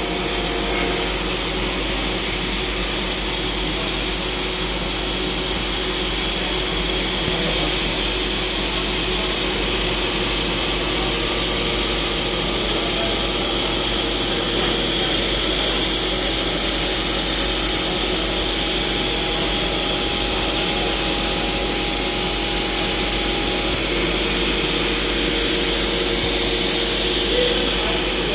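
CNC machine running and cutting: a steady machining noise with a steady high whine throughout.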